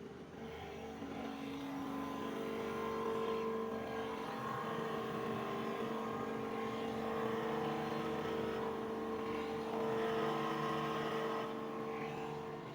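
A motor or engine running steadily with a humming tone, growing louder about a second in and easing off near the end.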